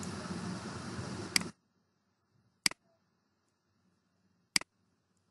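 Three sharp computer-mouse clicks, about a second or two apart. A steady background hiss cuts off suddenly about a second and a half in, just as the first click sounds.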